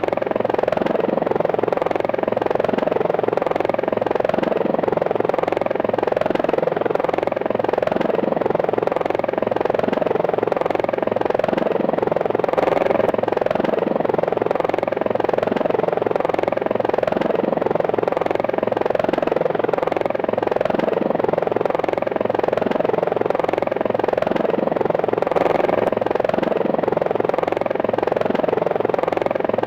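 Helicopter sound effect: a steady sound of engine and rotor with a fast, even beat of the rotor blades.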